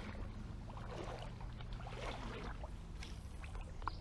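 Creek water sloshing and swishing in soft swells over a steady low rumble.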